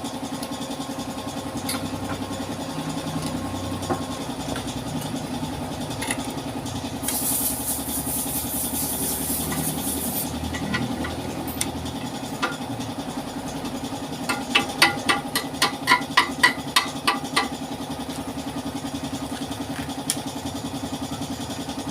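A steady engine hum runs throughout, with a burst of hiss about a third of the way in. A little past the middle, metal is struck about a dozen times in quick succession, roughly four blows a second, each one ringing.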